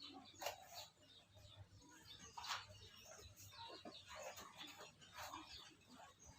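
Faint, irregular bird chirps, a few short calls scattered through otherwise near-silent background.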